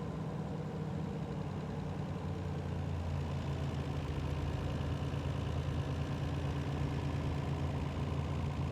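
Mitsubishi 3.0-litre V6 with ECI-Multi fuel injection idling steadily, a little louder from about three seconds in.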